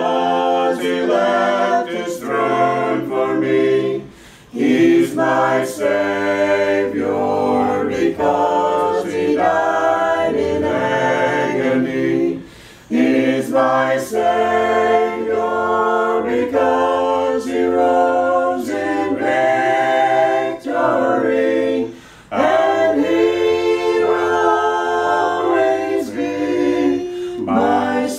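A Mennonite group of men and women singing a sacred song a cappella in parts. Their sustained chords break off briefly three times between phrases.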